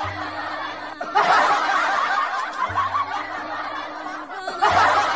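Laughter, with background music and a low bass note that cuts in and out.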